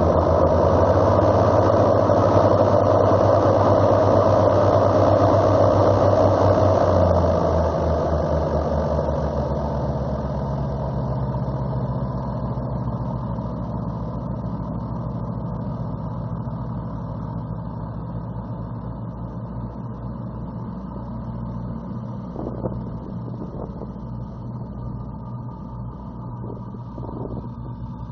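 Engines of an Air Cam twin-engine floatplane running as it taxis on the water. The engine note drops about seven seconds in, then fades steadily as the plane moves away.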